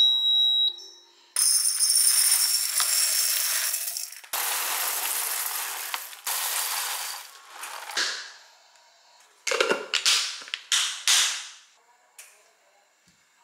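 Roasted coffee beans poured from a bag into a glass jar, a loud rattling pour in two long runs, then a few short rattles of beans around ten seconds in.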